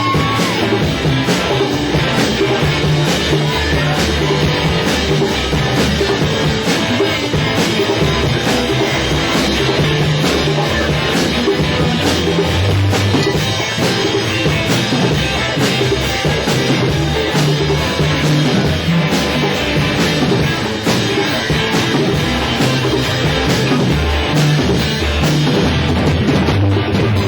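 Live rock band playing loud and steady, led by a drum kit, with no clear vocal line.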